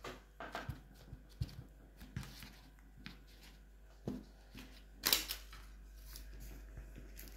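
Handling noise from modelling clay being worked by hand: scattered soft knocks and clicks, with a brief louder rustle about five seconds in.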